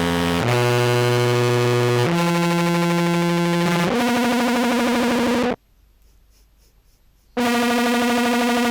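Contrabass clarinet played through a Horizont and Jackson Audio Modular Fuzz pedal chain: a series of held, heavily fuzzed notes that step to a new pitch every second or two. The notes break off for about two seconds a little past the middle, then one more note starts.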